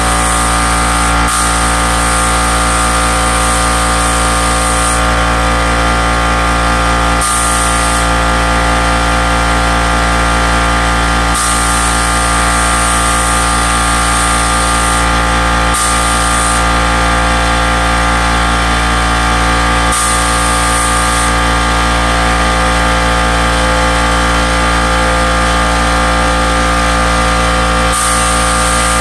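DeVilbiss StartingLine gravity-feed HVLP paint spray gun spraying in repeated passes. Its hiss switches on and off about six times, each burst starting with a click as the trigger is pulled, over a steady loud droning hum of many held tones.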